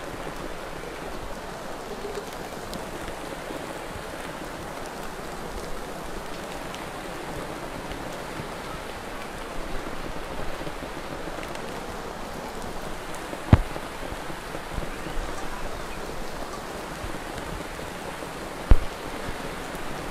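Steady patter of falling water, with two sharp knocks about two thirds of the way in and near the end.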